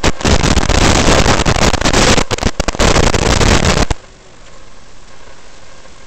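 FPV racing quadcopter's motors and propellers under hard throttle with rushing air, loud and dense with a few brief crackling dropouts, then cutting off abruptly about four seconds in to a much quieter steady hiss.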